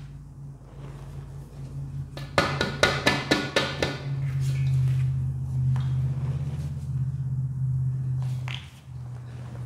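Hands patting and pressing powdered Ajax cleanser mixed with baking soda in a perforated metal pan: a quick run of about ten sharp pats a couple of seconds in, over a steady low hum.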